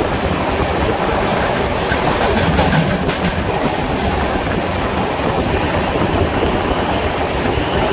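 Passenger express train running at speed, heard from on board: a steady rumble of the coaches with wheels clicking over rail joints, a few clicks about two to three seconds in.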